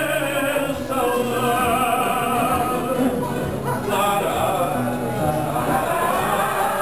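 Live fado: a male singer's voice held in long, wavering notes with vibrato, with the accompaniment underneath.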